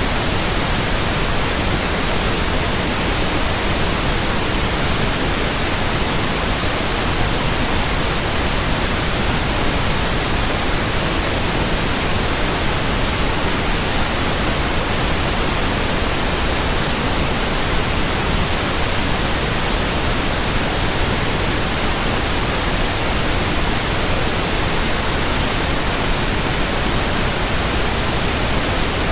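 Steady white noise: an even, unchanging hiss spread across all pitches.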